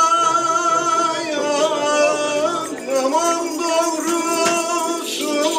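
A man singing a slow folk melody with long, wavering held notes. A hissing shimmer joins near the end.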